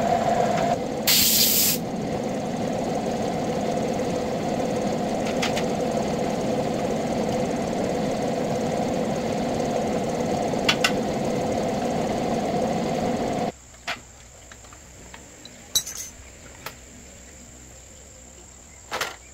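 A machine running steadily with a constant hum, and a short hiss about a second in. It cuts off suddenly about two-thirds of the way through, leaving a quiet background with a few scattered clicks and taps.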